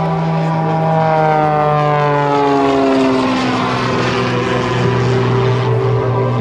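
Pitts Special aerobatic biplane's propeller engine running in flight. Its pitch falls over about two seconds, then holds steady.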